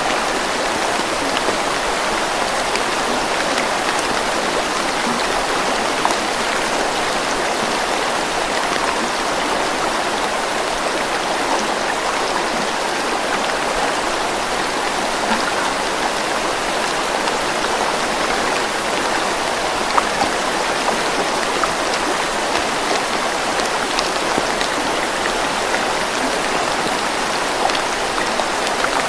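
Steady rain: an even, unbroken hiss with scattered small drop ticks.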